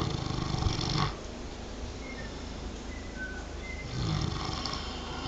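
A sleeping pig snoring: one snore at the start lasting about a second, and a second snore beginning about four seconds in.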